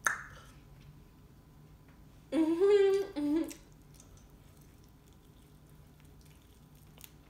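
A woman's closed-mouth hum, "mmm", about a second long and stepping in pitch, about two seconds in, while eating a chicken wing. Faint mouth clicks and lip smacks of eating come before and after it.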